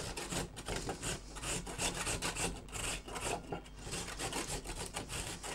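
Raw peeled beetroot grated on the coarse side of a metal hand grater, in repeated rasping strokes about two to three a second.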